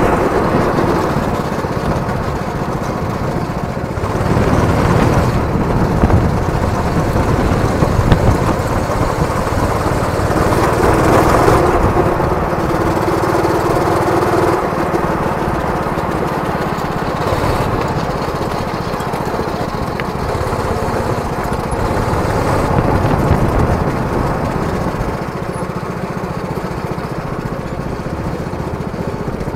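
Go-kart's small petrol engine running under the driver at speed, heard from on board. Its note rises and falls as the kart accelerates and slows through the track.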